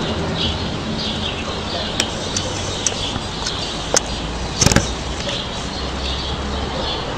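Small birds chirping again and again over a low, steady hum. A few sharp clicks, the loudest a quick double click just past the middle.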